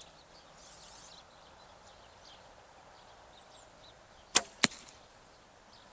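A single shot from a Bodnik Slick Stick longbow: a sharp snap of the string at release a little over four seconds in, then a second sharp knock about a third of a second later as the arrow strikes the target.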